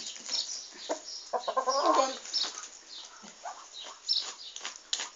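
Chickens clucking: a rooster and hens making many short, sharp calls, with one longer, lower call about one and a half seconds in.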